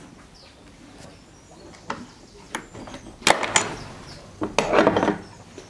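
Stable door being unlatched and swung open: a couple of light clicks, then two bursts of loud clattering and rattling, about three and a half and about four and a half seconds in.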